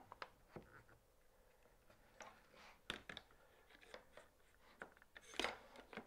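Near silence with scattered faint clicks and light knocks as a wooden board is positioned and clamped in a dovetail jig, with one slightly louder knock about five seconds in.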